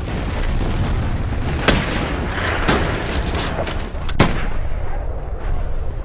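Pyrotechnic charges going off in the air: several sharp bangs, the loudest about a second and a half in and just after four seconds, over a steady rushing background noise.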